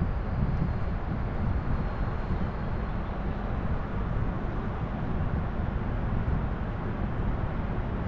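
Steady low rumble of wind buffeting the microphone outdoors, with no distinct events.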